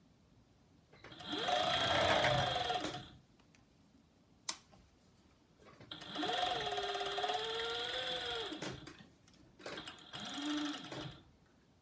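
Industrial overlocker (serger) stitching a waistband seam in three short runs, the motor speeding up and slowing down with each press of the pedal; the last run is the shortest. A single sharp click comes between the first two runs.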